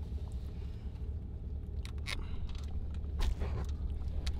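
Steady low hum of a car's cabin, with scattered short clicks and rustles from handling objects up close.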